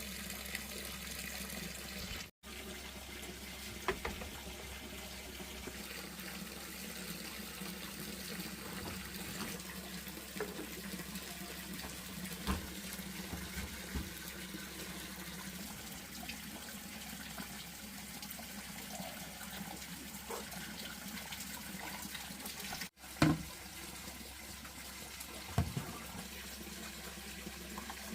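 Water running steadily, with a few scattered light knocks and clicks, the loudest shortly after 23 seconds; the sound drops out for an instant twice.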